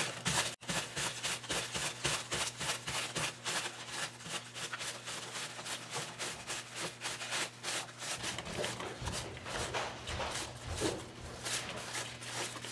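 Wet cloth rubbing over the textured scales of an EVA-foam prop egg in quick, repeated wiping strokes, several a second, taking off a thin wash of acrylic paint. A faint steady hum runs underneath.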